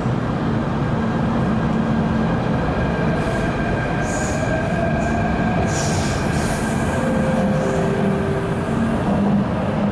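A Hyundai-Rotem K-Stock electric multiple unit of the MTR Tung Chung Line pulling out of the station and passing close by as it gathers speed: a steady loud rumble of wheels on rail, with a faint motor whine rising in pitch. Brief high-pitched squeals come in around the middle.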